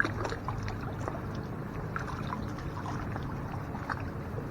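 Water splashing and dripping in small scattered ticks around a kayak on still water, over a low steady hum.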